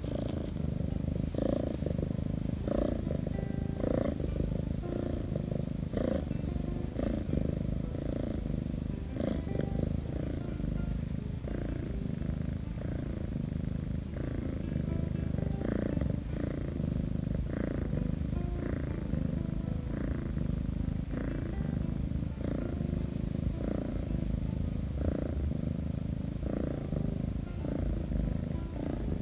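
A Korean shorthair kitten purring steadily and without pause while being stroked, a close, low rumble that swells and eases about once a second with its breathing.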